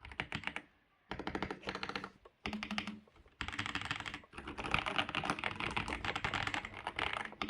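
Typing on an AJAZZ AK820 mechanical keyboard with Sea Salt switches: fast runs of keystroke clacks in short bursts with brief pauses, then a longer unbroken stretch of rapid typing from about three and a half seconds in.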